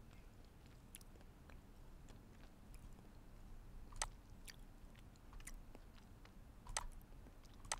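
Faint computer mouse clicks, several spread through a few seconds with the loudest about four seconds in, over quiet room tone.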